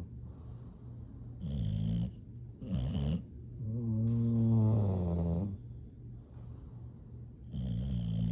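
Sleeping bulldogs snoring in a slow rhythm: four deep, droning snores, the longest and loudest about four to five and a half seconds in, with quieter breathing between them.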